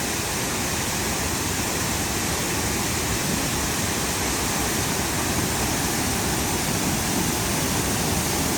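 Waterfall: a steady, full rushing of falling water.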